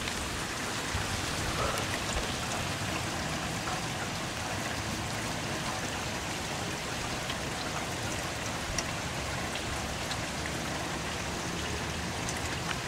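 Steady rain falling, an even hiss with a few faint, sharp drip ticks.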